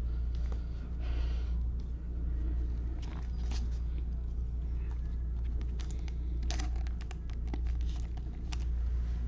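Clear cellophane wrapper of a trading-card cello pack crinkling, with cards handled in gloved hands, heard as short scattered rustles and clicks, thickest in the second half. A steady low hum runs underneath.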